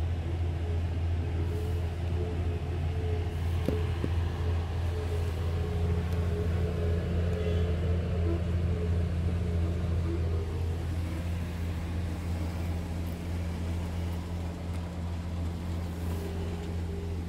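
Scania R tractor unit's diesel engine idling, heard inside the cab as a steady low hum.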